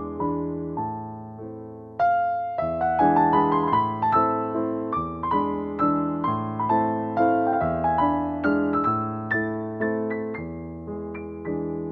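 Background piano music: single struck notes that ring and fade over low bass notes, growing louder about two seconds in.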